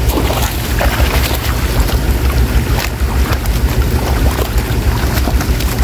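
Many fish thrashing and splashing in shallow water inside a net as they are grabbed by hand and thrown into baskets: irregular sharp splashes over a steady low rumble.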